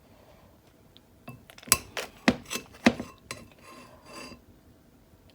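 A serving spoon clinking and knocking against a dish as cooked macaroni noodles are scooped and layered. There is a quick run of about seven sharp clinks, then a short softer scrape.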